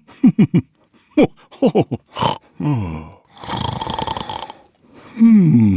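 Hallmark Snoring Santa Keepsake ornament playing its recorded Santa voice snoring: short falling grunts and snorts, one long rasping snore in the middle, and another falling grunt near the end.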